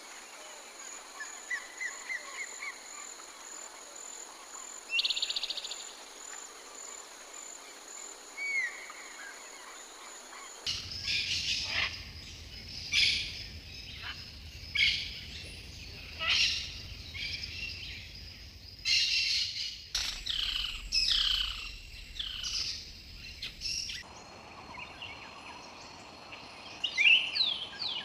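Wild songbirds calling and singing in short chirps, trills and sweeping whistled notes, in a few separate outdoor recordings spliced together: a sparser stretch of calls, then about eleven seconds in a denser, louder run of calls over a low rumble of background noise, changing again near the end.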